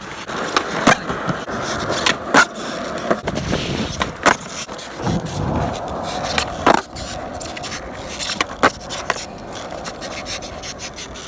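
Skateboard rolling over pavement, the wheels making a steady rolling noise broken by sharp irregular clacks.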